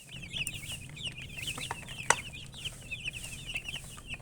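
Chickens chirping: a steady stream of many short, high chirps overlapping one another, with a single sharp click about two seconds in.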